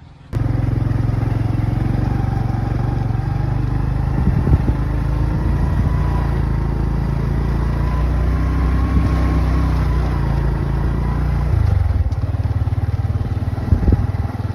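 A small engine running steadily. It cuts in abruptly just after the start, and its note shifts slightly about twelve seconds in.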